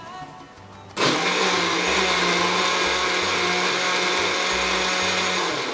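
Countertop blender switched on about a second in, running steadily on a thick liquid mixture with a steady motor hum under the whir, then winding down near the end.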